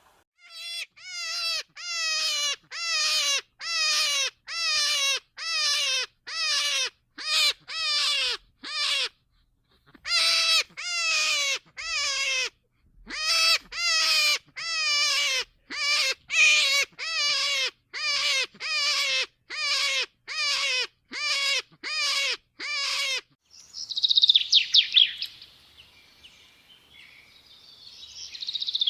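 A bird calling over and over, about one and a half short calls a second, each call dropping in pitch at its end, with a brief pause about nine seconds in. Near the end the calls give way to bursts of high twittering.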